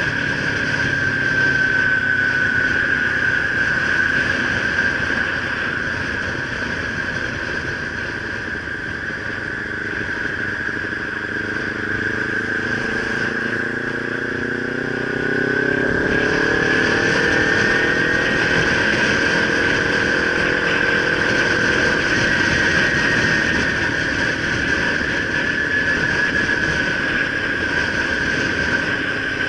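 Kawasaki Ninja 300's parallel-twin engine running under way in traffic, with rushing wind and road noise. A high steady whine runs throughout. About twelve seconds in, the engine note climbs as the bike accelerates, holds, then eases.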